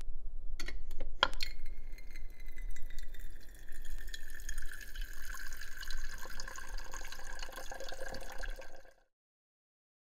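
Water running from a GE side-by-side refrigerator's door dispenser into a glass beaker, after a few sharp clicks about a second in; the stream runs steadily and stops abruptly near the end. The dispenser flows freely, its water line no longer frozen.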